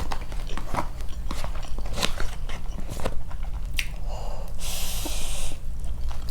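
Close-up chewing and biting of fried chicken, with small crunches and mouth clicks scattered through. About five seconds in there is a rushing hiss lasting about a second.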